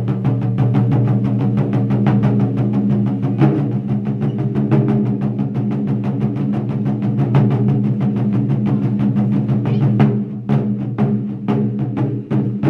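Taiko drum ensemble playing: a fast, continuous stream of stick strikes on several barrel drums, with a deep, sustained low resonance. About ten seconds in, the dense rolling gives way to fewer, separate hits.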